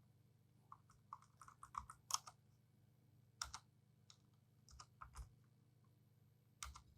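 Faint key presses on a Dell desktop keyboard while paging through BIOS setup menus: a quick run of clicks about a second in, then single presses a second or so apart.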